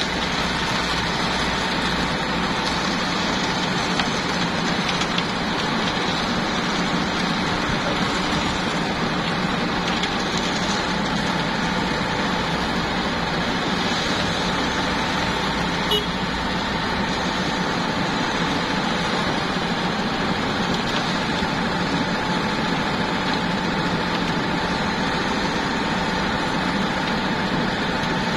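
Diesel engines of a Komatsu PC78US excavator and a mini concrete mixer truck running steadily, with a steady high tone over the engine noise and a couple of light knocks.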